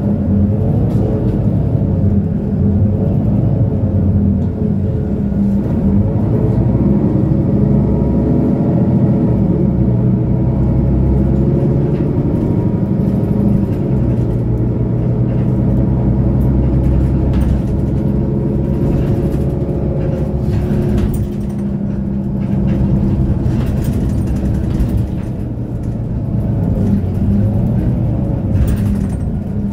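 Diesel engine and drivetrain of a 2008 Mercedes-Benz O530 Citaro Ü city bus, heard from inside the passenger cabin while the bus drives. The engine note climbs in pitch over several seconds, drops back and climbs again as the bus pulls away and works through its gears.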